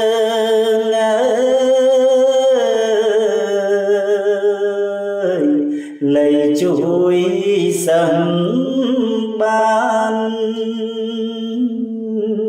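A man chanting Khmer verse in the kakagati meter in the lamenting pilap recitation style, drawing each syllable out into long held notes that slide between pitches. There is a short break for breath about six seconds in before the chant carries on.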